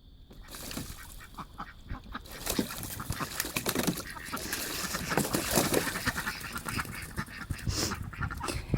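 Domestic ducks quacking excitedly while splashing about bathing in a pond, the commotion growing louder a couple of seconds in.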